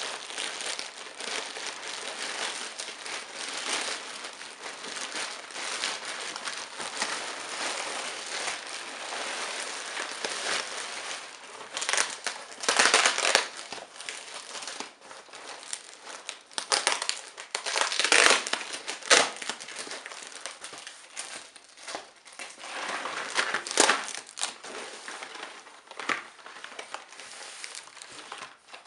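Plastic mailer bag and foam packing sheet being crinkled and pulled open by hand: continuous rustling, with several louder crackles in the second half.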